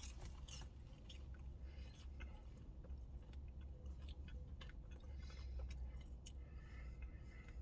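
Faint chewing and small mouth clicks close to the microphone, over a low steady rumble.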